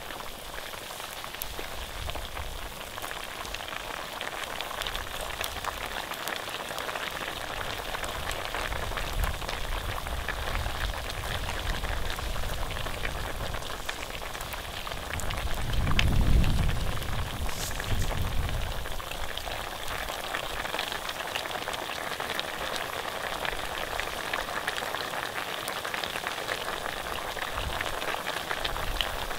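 Pork sizzling and crackling in hot fat over an open fire: a steady hiss full of fine pops. A brief low rumble swells just past the halfway point.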